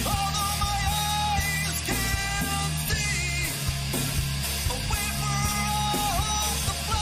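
Background rock song: a singing voice over a steady drum and bass beat.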